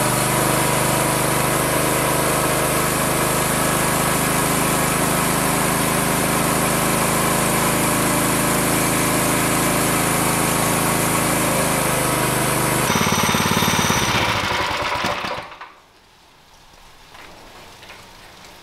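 Small single-cylinder kart engine running steadily under load, chain-driving the hydraulic pump of a homemade dyno on a chain-stretching break-in run. About thirteen seconds in the note changes, and a couple of seconds later the engine shuts off and winds down, leaving only faint ticking.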